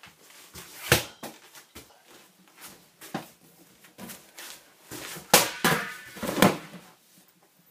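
Hollow thumps of a large inflatable rubber ball bouncing and being caught, a few single hits a couple of seconds apart, then a close cluster of thumps and scuffling as the ball is grabbed near the end.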